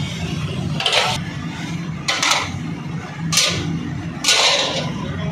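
Metal spatula scraping and stirring potato pieces frying in spice paste in a large metal pot, a scrape roughly once a second, over a steady low hum.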